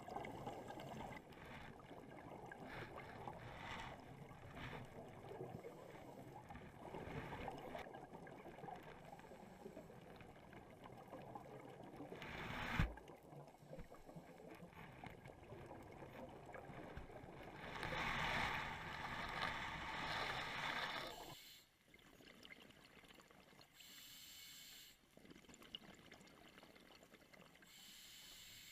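Scuba diver's breathing underwater, heard through the camera housing: exhaled bubbles from the regulator gurgling in bursts, loudest for a few seconds past the middle, with one sharp knock about 13 seconds in and quieter stretches near the end.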